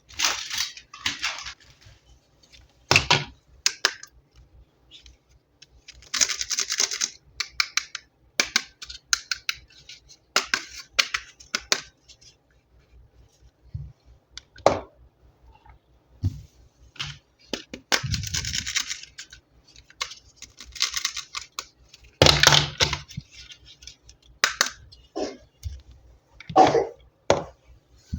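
Plastic packaging crinkling and rustling in short bouts as toys are unboxed by hand, with scattered clicks and taps of hard plastic toy parts.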